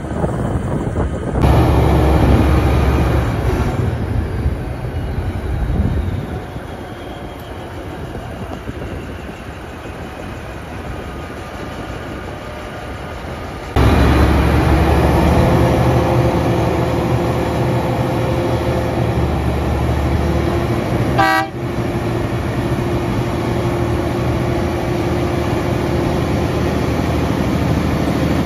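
Tully Mill's cane-train diesel locomotive Tully-3 running, its engine giving a steady low throb. A short horn toot sounds about three-quarters of the way through.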